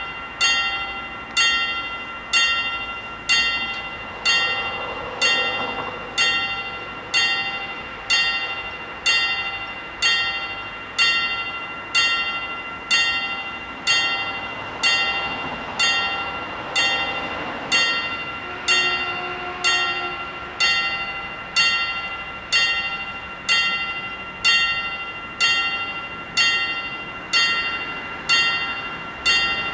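Level-crossing warning bells ringing in a steady, even rhythm of single strikes, roughly one and a half a second, each strike ringing out and fading. They are sounding because the crossing has been activated for an approaching train.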